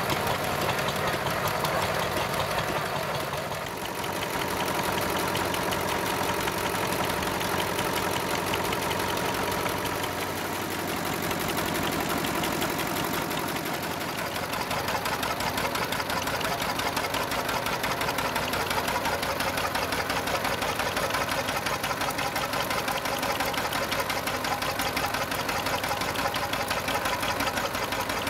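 Vintage stationary engines running, one after another, each with a fast, even beat. The sound changes about 4 s in and again between about 10 and 14 s in, as a different engine takes over.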